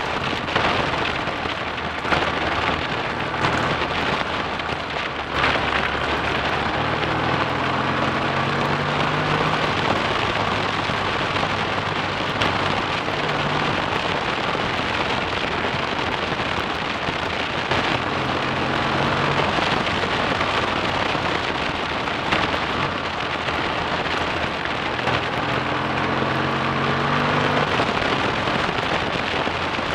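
BSA A65 Thunderbolt's 650 cc parallel-twin engine running on the move, its note rising several times as it pulls up through the revs, under a heavy rush of wind on the handlebar-mounted camera.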